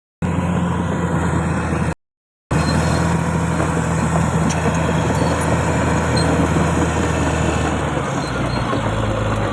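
Bulldozer's diesel engine running steadily, broken by two abrupt silent cuts. About eight seconds in, the engine note shifts lower.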